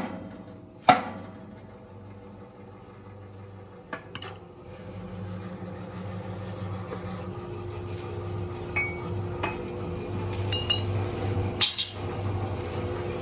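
Metal clanks and clinks of metal workpieces being handled, with a sharp knock about a second in and scattered light clinks after it, over a steady low machine hum.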